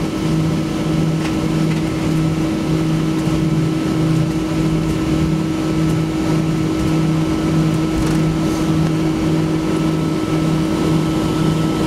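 Cabin noise of a Boeing 737-800 taxiing after landing, its CFM56-7B engines at idle: a steady drone with a low hum that throbs about one and a half times a second.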